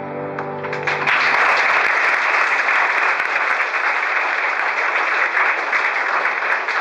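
Audience applauding at the end of a song: the singers' final held chord dies away about a second in, and steady clapping from the hall fills the rest.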